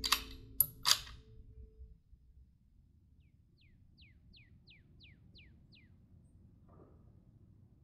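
Lee-Enfield No. 4 Mk I rifle: a sharp report and quick metallic clacks of the bolt being worked, all within the first second. Then faint open-air background with a bird calling a run of about seven short, falling chirps.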